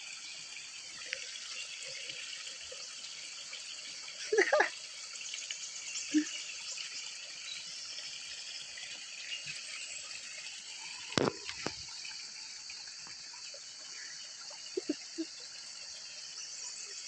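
A small stream trickling steadily, with a steady high insect drone over it. A few brief louder sounds break in, the loudest a short knock about eleven seconds in.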